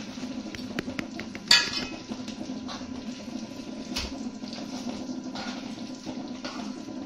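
A cooking utensil clinking and scraping against a pan as chicken steaks are turned in cream sauce, with a sharp knock about a second and a half in and another about four seconds in, over a steady low hum.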